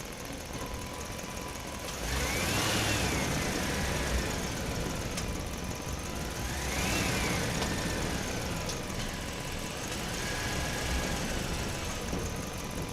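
Truck driving through a parking structure with its engine running. A whine rises and falls about two seconds in and again around seven seconds in, with a weaker one near the end.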